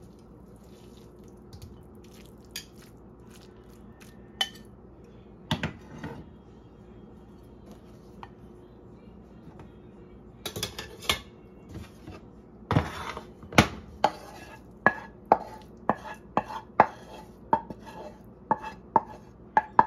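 Kitchen utensils knocking and scraping against a nonstick frying pan and a ceramic bowl as pasta and sauce are served. A few scattered clicks at first, then, about halfway through, a run of sharp taps, one or two a second, as the sauce is scraped and tapped out of the pan.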